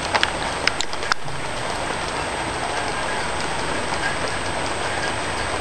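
Heavy rain falling steadily, a dense even hiss of drops, with a few sharp ticks of drops in the first second or so.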